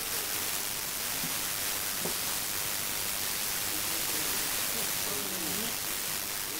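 Steady hiss throughout, with a faint voice in the background between about four and six seconds in.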